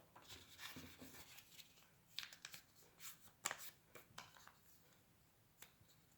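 Faint rustling and crinkling of paper as paper circles are folded in half and in half again, in short irregular bursts that fade out near the end.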